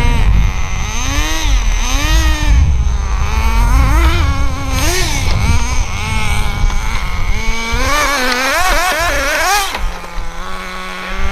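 Small nitro-fuelled RC car engine revving up and down again and again as the throttle is worked, its pitch rising and falling in quick swoops, with a low rumble underneath in the first half. Near the end it drops to a steady idle.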